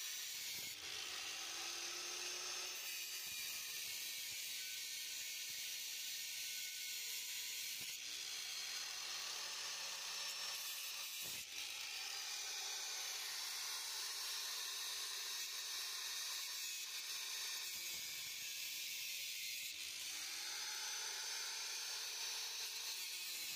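Angle grinder with a cut-off wheel running steadily, a high whining hiss as it cuts through the nut of an exhaust flange bolt on the catalytic converter.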